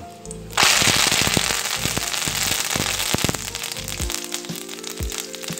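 Fresh curry leaves hitting hot tempering oil in a kadai: a sudden burst of loud sizzling and spattering crackle about half a second in, easing off gradually.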